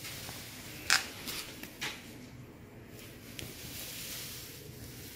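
A few small clicks and soft rustles over a faint steady hiss, the sharpest click about a second in and a second one shortly before two seconds.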